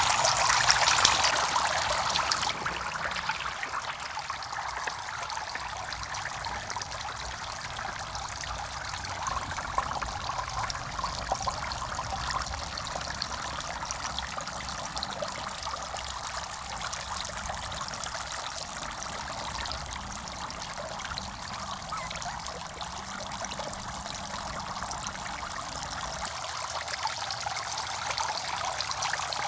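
Water splashing as a basket of catfish is tipped into a shallow pond, loudest for the first couple of seconds. After that comes a steady trickle of small fountain jets falling into the pond water.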